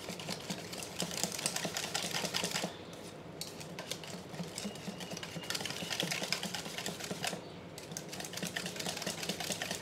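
Wire whisk beating a thick yoghurt mixture in a stainless steel bowl: a fast, even run of clicks and scrapes from the wires against the metal, with short lulls about three seconds in and again past seven seconds.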